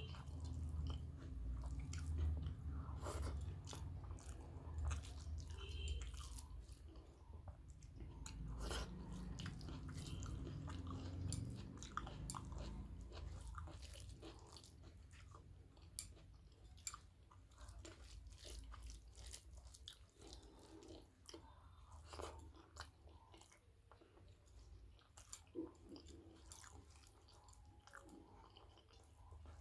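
Close-miked mouth sounds of a person eating rice with curry and mashed aubergine: wet chewing, lip smacks and sharp clicks, busier and louder in the first half and quieter after about thirteen seconds.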